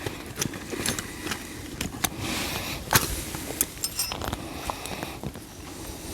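A metal fire starter struck against wet tinder: sharp clicks and scrapes at irregular intervals, with a brief high metallic ringing about four seconds in.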